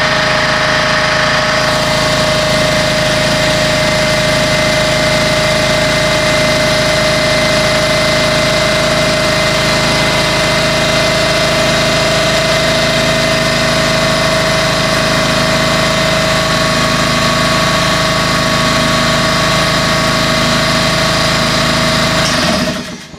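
A compressor running loudly and steadily, then shutting off suddenly near the end.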